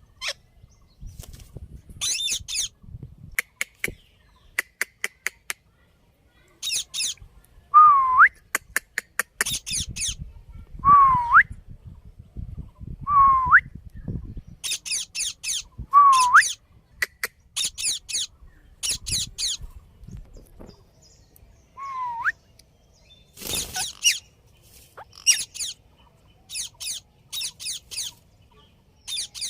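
Indian ringneck parakeet calling: short, harsh, high screeches again and again, mixed with a whistle that dips slightly and then sweeps sharply upward, given five times. A low rumble runs under parts of it.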